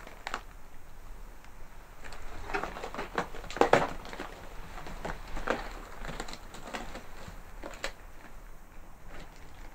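Footsteps over a debris-strewn floor, with irregular knocks and crackles of rubble and loose wood underfoot, loudest in a cluster about three and a half seconds in.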